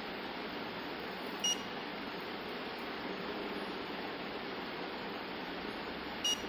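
Two short high electronic beeps about five seconds apart from a dental curing light timing its cycle while the composite filling is light-cured. Under them runs a steady hiss.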